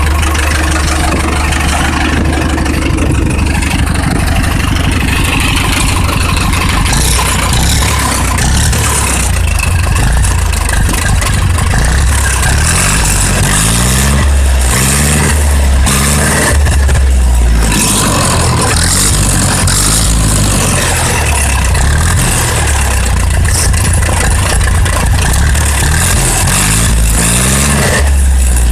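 Ursus C-360 tractor's four-cylinder diesel engine running steadily, with its revs rising and falling a few times; it is presented as a healthy-sounding engine.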